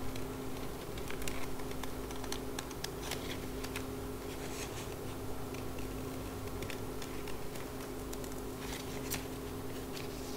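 Scissors snipping through green paper folded in four: a run of short, irregular snips. A steady hum runs underneath.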